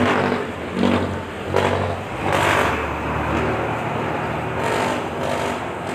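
Street traffic: a passing jeepney's engine running, with general road noise.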